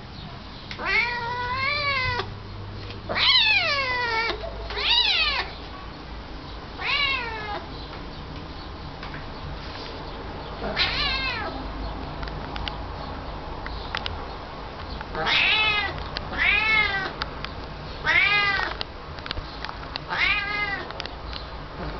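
Domestic cat meowing repeatedly, about nine meows spread out with pauses between them. Some are drawn out, and each rises and then falls in pitch.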